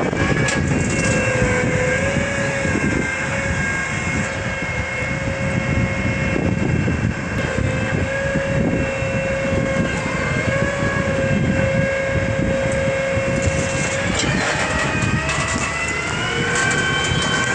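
Farm tractor's diesel engine running steadily under load as it pulls an 8-row Paratill deep-tillage implement through the soil at about 4.5 mph: a continuous rumbling drone with a steady whine that climbs slightly about fourteen seconds in.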